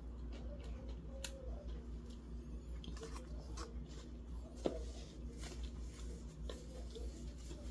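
Eating sounds of fried chicken being picked apart by hand and chewed: scattered small clicks and soft mouth noises, with one sharper click about four and a half seconds in, over a low steady hum.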